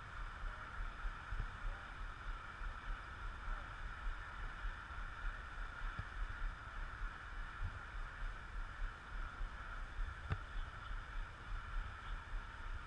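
Wind buffeting an outdoor camera microphone in irregular low rumbling gusts over a steady faint hiss, with two small clicks, the second about ten seconds in.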